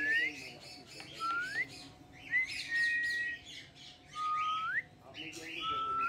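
Aviary birds chirping, with a clear whistle repeating about every second: mostly short rising whistles, and one held level note near the middle.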